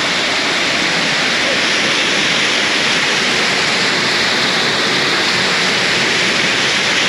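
Small waterfall pouring over a rock face and splashing into its pool: a loud, steady rush of falling water.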